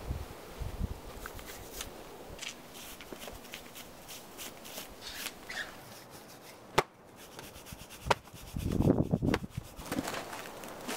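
Handling noises of a boulderer getting onto a granite boulder: rustling, small clicks and scrapes, then two sharp taps about seven and eight seconds in, followed by a louder rough scuffle as he pulls onto the rock.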